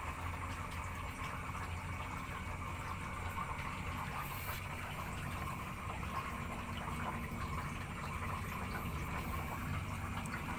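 Steady, even running or bubbling water noise.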